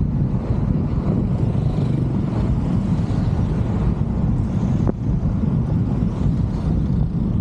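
Steady low rumble of a car driving, with wind buffeting the microphone. A brief click about five seconds in.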